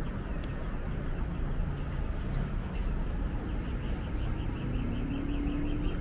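Steady city traffic noise. From about halfway through, a faint, fast, high-pitched chirping of about six pulses a second joins it.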